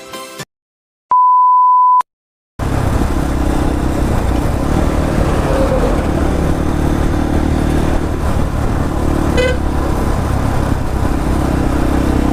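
A steady one-second beep tone, then from about two and a half seconds in, a motorcycle on the road: steady engine drone under wind and road noise.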